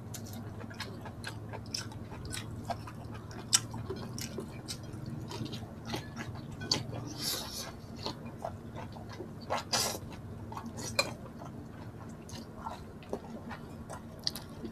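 Close-miked eating: wet chewing and mouth sounds with scattered small clicks. A short hissing noise comes about seven seconds in, and a sharper click near ten seconds.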